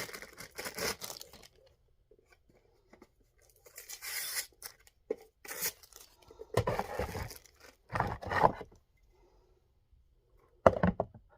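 Packaging being torn open and handled while unpacking a robot vacuum's parts: several irregular bursts of tearing and crinkling separated by short pauses.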